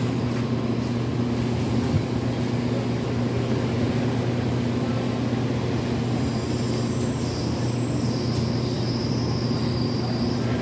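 A motor running steadily with a constant hum, joined by a faint high-pitched whine from about six seconds in.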